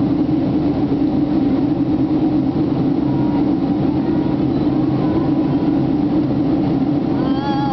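Steady cabin drone of a Boeing 767-300ER in flight, the jet engines and airflow heard from a window seat as one even, unbroken rumble.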